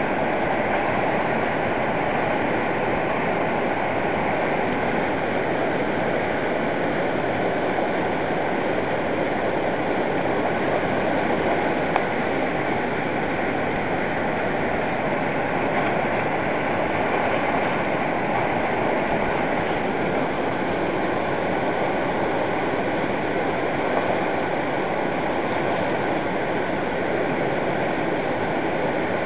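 Whitewater rapid rushing steadily, an unbroken wash of churning river water.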